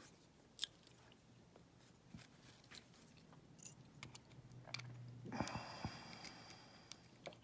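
Faint scattered clicks, taps and scrapes of small metal tools and parts being handled on a padlock core as it is worked apart, with a slightly fuller scrape of handling about five seconds in.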